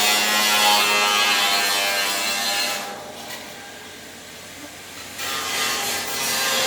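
Submerged arc welding in progress: a steady hissing, crackling noise under a faint hum. It drops away for about two seconds midway, then comes back.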